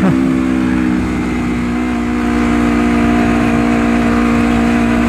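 Honda CBR250RR with a 3Tech EvoX X3NRC aftermarket exhaust, its engine holding a steady note while cruising, the pitch lifting slightly about two seconds in.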